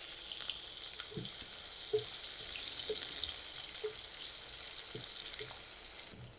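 Sliced onions frying in hot oil in a karahi: a steady sizzle, with a few soft knocks as a wooden spatula stirs them. The sizzle cuts off sharply near the end.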